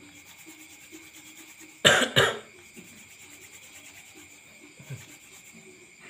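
A person coughs twice in quick succession, about two seconds in.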